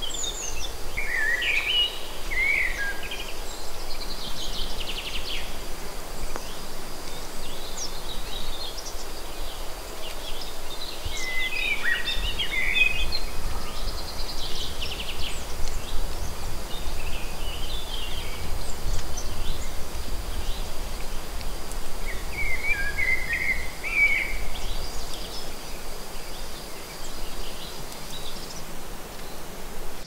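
Woodland songbirds singing short chirping phrases at intervals, over a steady outdoor background hiss with a thin high tone, and a low rumble that comes in about halfway through.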